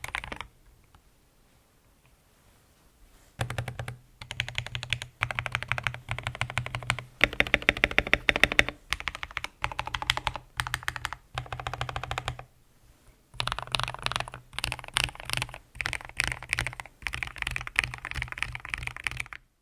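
Typing on a TM680 mechanical keyboard with lubed KTT Strawberry linear switches and POM jelly keycaps, its case damped with tape, foam and O-rings. Runs of fast keystrokes stop for about three seconds near the start, then carry on in bursts with short breaks.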